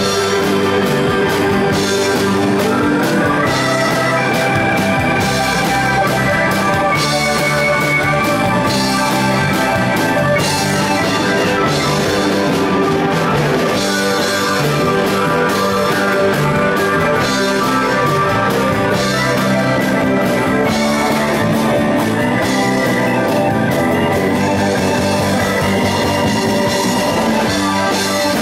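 Blues-rock band playing live: electric and acoustic guitars over a drum kit, loud and steady, with regular drum hits.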